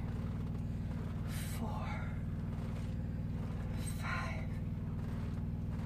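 A semi truck's idling engine drones in a low, steady hum. Over it come two short, breathy exhalations, about a second and a half in and again at about four seconds, from a woman exerting herself during bodyweight squats.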